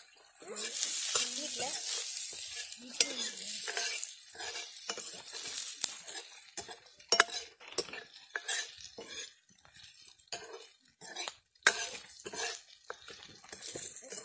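Chopped onions sizzling in oil in a black iron kadai while a steel ladle stirs them. The sizzle is strongest for the first few seconds; after that, repeated sharp scrapes and knocks of the ladle against the pan take over.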